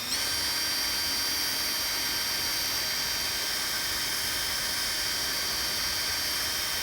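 Small electric drill running with a steady high-pitched whine while drilling out rivets. It speeds up just after the start, then holds speed.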